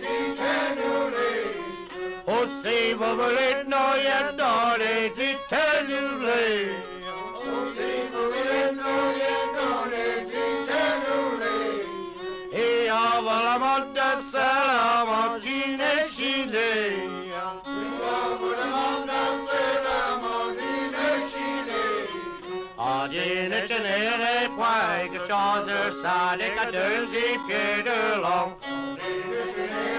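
Traditional French folk song from an old recording: fiddle playing with men's voices singing.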